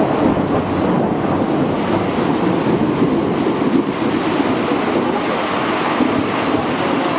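Torrential rain pouring down in a thunderstorm, a loud, steady rush.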